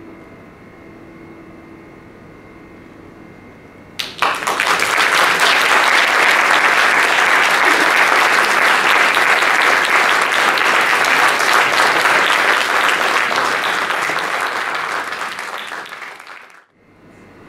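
A grand piano's last note fades out, then about four seconds in an audience breaks into applause, steady for about ten seconds before fading and cutting off near the end.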